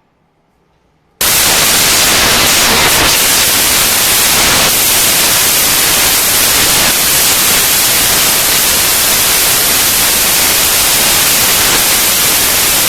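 Loud, steady white-noise static that cuts in suddenly about a second in, after a moment of near silence.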